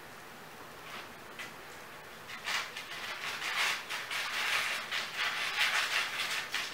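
Kittens scrabbling and rustling on the blanket and plastic floor of a pet carrier: a few soft scratches about a second in, then a busy run of scratchy rustling from about halfway.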